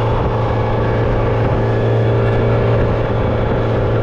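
Boat engine running steadily at a constant speed, a loud, even hum that holds one low pitch throughout.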